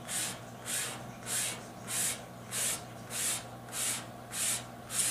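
A plastic ID card stroked over the backing paper of a wet-applied vinyl decal, a scraping hiss repeating about every 0.6 seconds, squeezing the application water out from under the decal.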